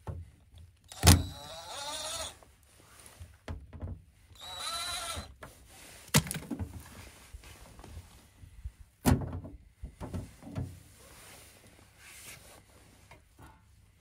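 Cordless drill-driver backing out the screws of a heat pump's access hatch: two short whirring runs of about a second each, the first starting with a sharp click. A few sharp knocks follow as the hatch is handled and taken off.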